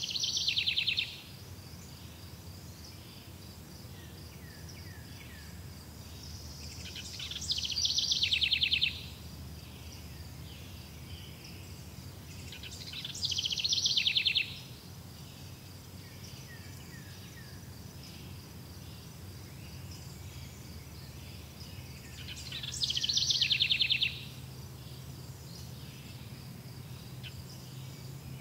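A bird singing a short, fast trill four times, each phrase swelling for about a second and a half and cutting off sharply, over a steady high insect trill.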